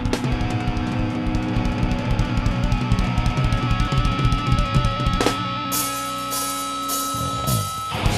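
A live rock band plays an instrumental intro, with a fast drum kit and distorted electric guitar. About five seconds in there is a heavy accent, followed by a run of cymbal crashes over a held high note.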